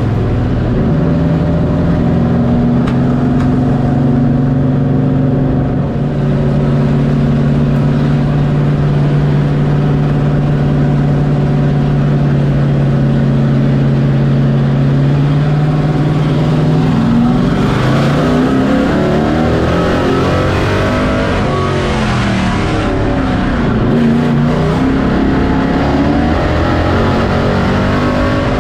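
Race truck's engine heard from inside the cockpit. For about the first sixteen seconds it holds a steady note, then it rises and falls over and over as the throttle goes on and off through the laps.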